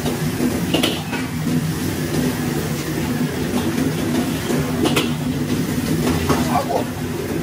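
Steady roar of a restaurant kitchen's gas wok range and its fans, with a wok of broth at the boil. A few short metal clinks from the pots and utensils come about one second in and about five seconds in.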